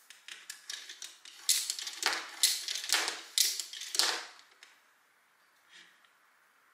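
Plastic LEGO Technic beams, pins and connectors clicking and clattering as they are handled and pressed together by hand: a quick run of clicks that stops about four and a half seconds in, then one faint click.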